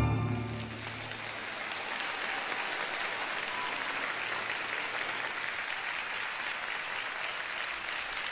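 Large audience applauding steadily as the last note of the violin music dies away.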